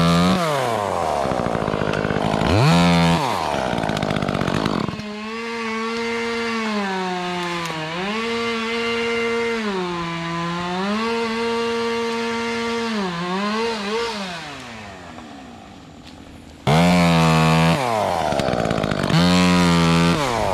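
Two-stroke chainsaw revving hard in short bursts. In the middle it runs for a long stretch at steady throttle, its pitch sagging and recovering several times as it cuts through wood. Near the end it goes back to sharp revving.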